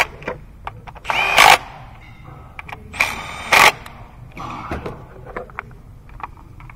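Red cordless power driver spinning coil hold-down bolts into the valve cover in two short runs, each about half a second long and starting with a rising whine as the motor spins up. A few light clicks follow.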